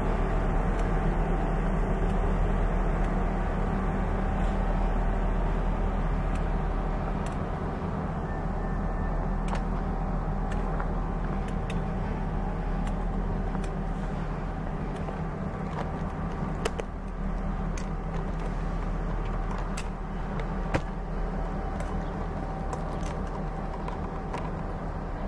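Steady low drone of an idling diesel engine on a standing passenger train, easing off slightly, with scattered light clicks and one sharper tick near the end.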